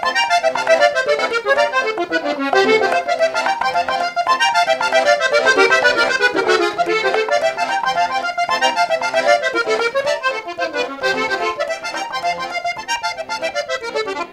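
Three-row button accordion played solo: quick runs of melody notes climbing and falling over low bass notes. The playing stops abruptly near the end.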